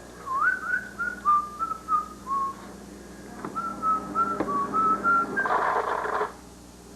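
A person whistling a short tune in two phrases of stepwise held notes, followed by a brief burst of noise near the end.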